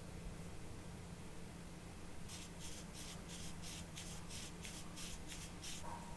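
A run of short, even scraping strokes against a small plastic model-kit part, about three a second, starting about two seconds in and stopping just before the end.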